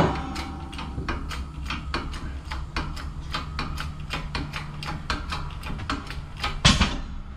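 A bottle-jack shop press being pumped, its jack clicking about three to four times a second as it forces a golf cart rear axle shaft out of its old bearing. Near the end the bearing breaks free with a loud bang.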